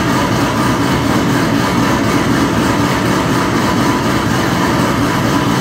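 2010 Chevrolet Camaro's Whipple-supercharged engine, fitted with a JRE smooth-idle cam, idling cold through a Corsa exhaust: a steady, even idle that holds without revving.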